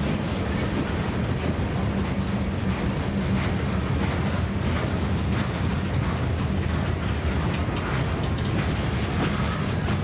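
Freight boxcars rolling past on jointed rail: a steady rumble of steel wheels on the track with scattered clicks and clanks from the cars' running gear.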